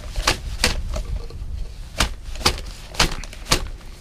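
A can of thick cherry pie filling being shaken and knocked to get it out into a plastic zip-top bag: about six sharp knocks and clicks, irregularly spaced.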